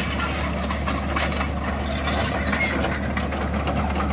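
Caterpillar 312B crawler excavator travelling on its tracks: the diesel engine runs steadily under a dense, continuous clatter of steel track links.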